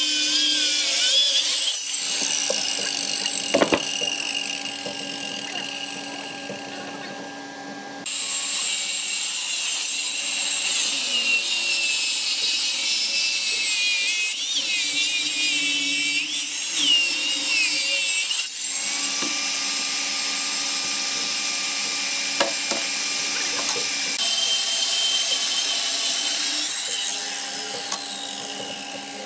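Makita circular saw cutting lengthwise through a thick hardwood slab, its high whine wavering in pitch as the blade works through the wood. The sound shifts abruptly several times and grows quieter near the end.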